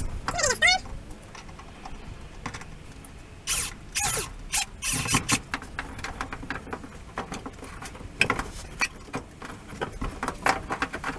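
Irregular knocks, clicks and handling noises from carpentry work on wooden framing, with a short squeak falling in pitch about half a second in.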